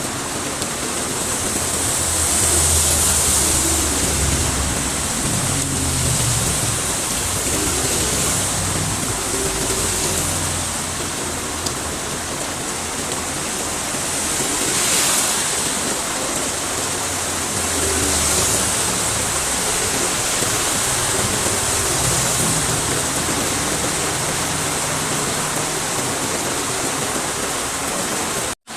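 Heavy rain pouring steadily, with a few louder swells of low rumble and hiss as vehicles pass on the wet road. The sound cuts out for an instant near the end.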